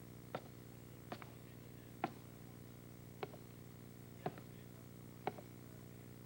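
Slow, hard footsteps, six single steps at uneven spacing of about one a second, over a faint steady hum.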